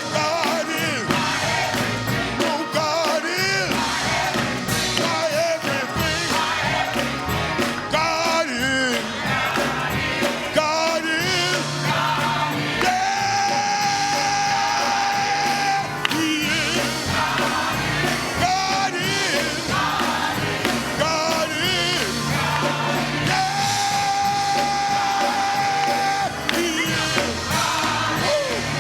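Church music: singing over instrumental accompaniment with a steady bass line. The voice slides and bends through its phrases and holds two long notes, one near the middle and one near the end.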